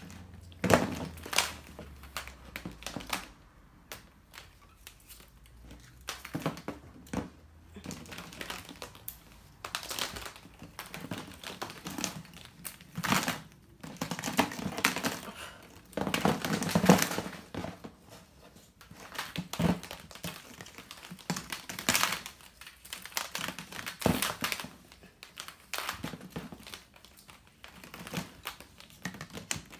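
Hollow plastic Easter eggs strung on a garland clacking and knocking against one another and against a thin plastic basket as they are piled into it, in irregular clusters of clicks and rattles.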